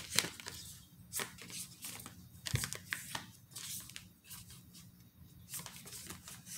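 Oracle cards being handled and sorted by hand: irregular light rustles, slides and flicks of card stock, with a soft knock about two and a half seconds in.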